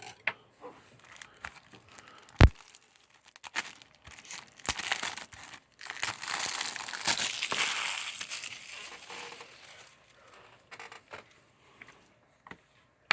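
Plastic packaging crinkling and tearing as a Blu-ray case is opened, with a few sharp clicks, the loudest about two and a half seconds in, and a long stretch of crinkling in the middle.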